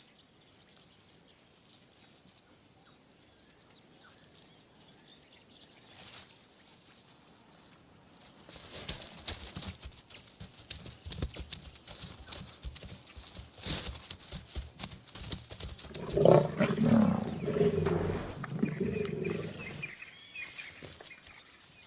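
Lions attacking a young giraffe: faint high chirping at first, then scuffling and knocks from about eight seconds in, and low growls from the lions near the end.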